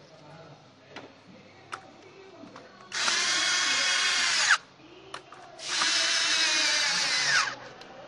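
Power drill running in two bursts of about a second and a half and two seconds, with a steady motor whine whose pitch drops as each burst stops.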